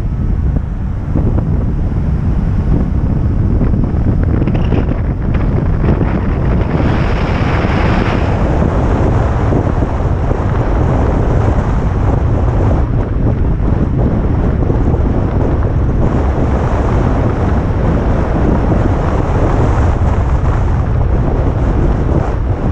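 Heavy wind noise buffeting the camera microphone, a loud steady rumble strongest at the low end, from the wind of a vehicle driving downhill. It brightens briefly about seven seconds in.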